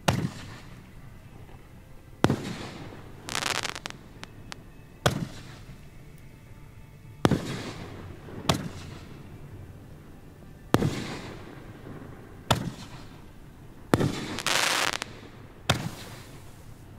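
Fireworks display shells bursting one after another: about nine sharp bangs spaced one to three seconds apart, each trailing off in an echo. Two longer hissing, crackling bursts come in between.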